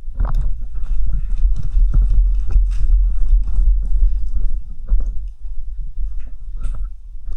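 Footsteps crunching over debris, irregular steps about two to three a second, each with a deep thump.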